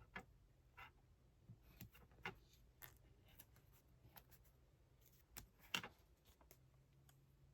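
Quiet room with a scattering of light clicks and taps from small objects being handled, the loudest a little before the end, over a faint low hum.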